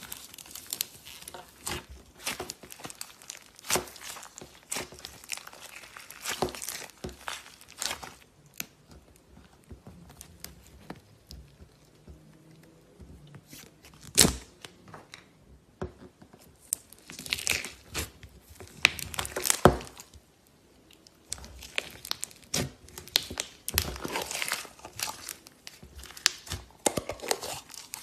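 Slime being worked by hand as colour is mixed in: sticky crackling and popping in irregular bursts, with brief pauses.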